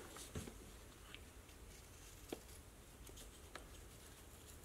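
Carving knife whittling basswood: a few faint, separate cutting clicks, roughly one a second.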